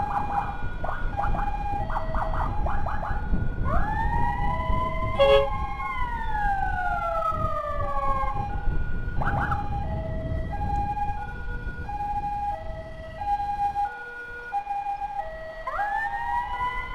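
Emergency vehicle sirens of an ambulance escort. A high-low two-tone siren alternates steadily. Over it, fast chirping yelps sound in the first few seconds, then a wail rises, holds for about two seconds and slowly falls, and another wail starts rising near the end. A low rumble of motorcycle engine and wind runs underneath.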